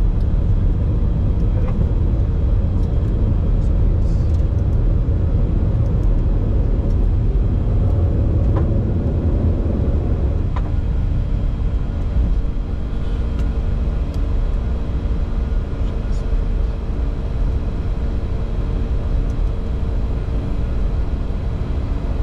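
Cockpit noise of a Bombardier Challenger 605 in its initial climb after take-off: a loud, steady rumble of its two GE CF34 turbofans and the airflow over the nose. About ten seconds in the rumble eases slightly and a few steady hum tones come through.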